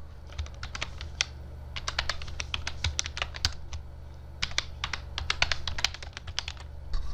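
Typing on a computer keyboard: quick runs of keystroke clicks with short pauses between them, over a steady low hum.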